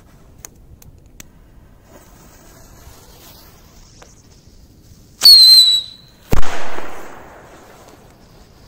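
A whistling firecracker lets out a shrill whistle for under a second, its pitch falling slightly. About a second later it goes off with a sharp, loud bang that dies away over about a second.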